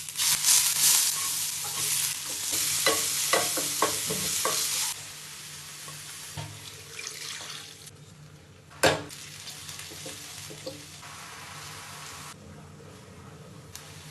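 Food sizzling in a hot pan, with the clicks and scrapes of stirring. The sizzle is loudest for the first five seconds, then drops suddenly to a quieter sizzle. A single sharp knock comes about nine seconds in.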